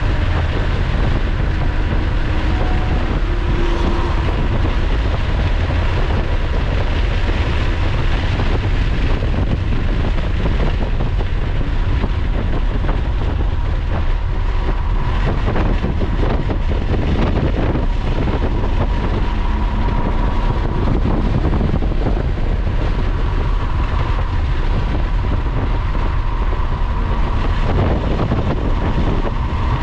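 Lotus sports car's engine, tyres and wind heard from inside the cabin at track speed, a steady loud mix of engine and road noise as the car runs from about 100 mph down to about 65 mph.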